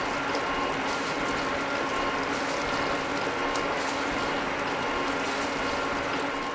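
Oerlikon K4A straight bevel gear planer running, a steady mechanical gear-drive noise with a constant hum under it.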